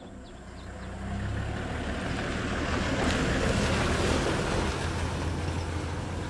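Open game-drive vehicle driving on a dirt track: a low engine and road rumble under wind noise on the microphone, fading in over the first second and then steady.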